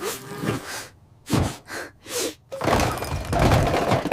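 Cartoon sound effects of a tumble: a few separate knocks and thuds, then from a little under three seconds in a longer, loud crashing clatter.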